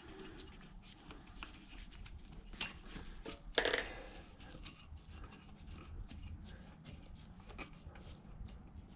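Faint metallic clicks and handling noises as the nuts are unscrewed from a motorcycle inner tube's valve stem, with one louder clatter about three and a half seconds in.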